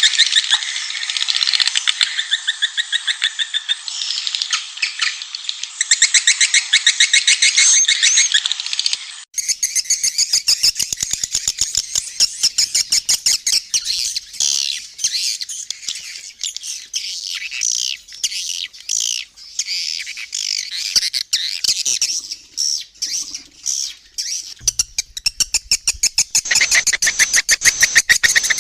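Recorded swiftlet call: dense, rapid, high-pitched chirping and twittering from many swiftlets, of the kind played as a lure call to draw the birds into a swiftlet house. About nine seconds in, the sound shifts abruptly to another stretch of chirping.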